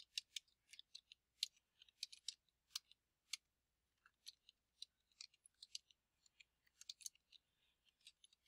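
Faint typing on a computer keyboard: quick, irregular runs of key clicks with short pauses between them.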